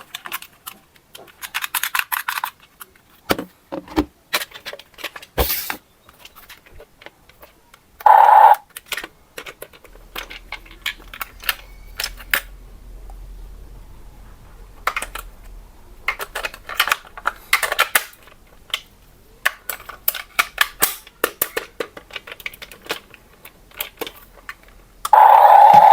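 Clicks, rattles and crinkling of plastic toy parts and packaging being handled. A short, loud electronic tone sounds about 8 s in, and a loud steady tone starts near the end.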